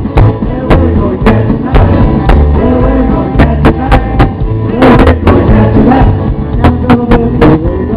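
Live rockabilly band playing a rock and roll number, with a steady, driving beat of sharp strokes. It is a loud recording with very bad sound quality: muffled, with no top end.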